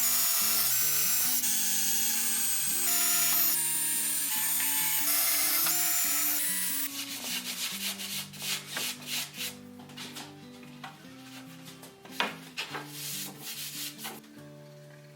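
Sanding on wood: a steady, loud sanding noise for about seven seconds, then separate rubbing strokes, a couple a second, fading toward the end. Acoustic guitar music plays underneath.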